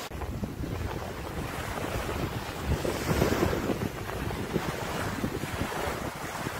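Strong coastal wind buffeting the microphone, with a gust that swells about three seconds in.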